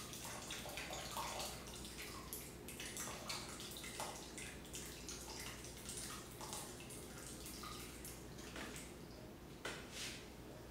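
Whey and soft curds pouring from a stainless steel pot into a cheesecloth-lined colander, splashing and trickling unevenly with scattered drips.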